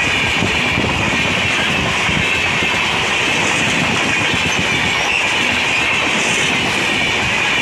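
LHB passenger coaches of an express train rolling past at speed close by: a steady loud running noise of steel wheels on rail, with a high hiss and irregular low clatter.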